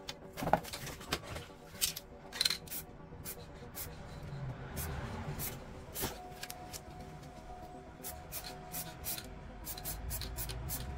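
Spray-paint artwork being worked by hand: a run of short, sharp, irregular strokes on the painting surface, under soft background music.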